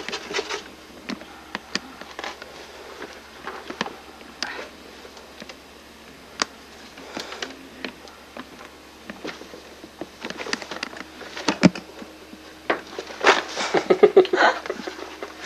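Handling noises as a cat is lifted out of a cardboard drawer and held: scattered rustles and small clicks, a sharp knock about twelve seconds in, and a busier stretch of rustling and scraping near the end as the cat goes back into the drawer.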